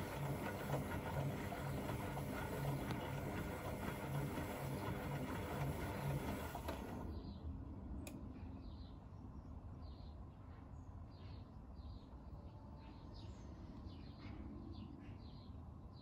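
Beko WM8120 washing machine during a test wash: a water rush with a low pulsing hum, which cuts off about seven seconds in, leaving a quieter low hum with faint drips.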